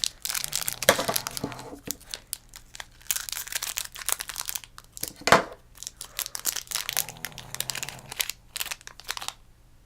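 Plastic packaging being crinkled and torn open by hand, a dense run of crackles and rustles that thins out near the end.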